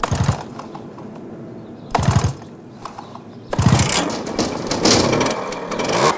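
Small lawnmower engine coughing briefly twice, then catching about three and a half seconds in and running with a fast, continuous clatter.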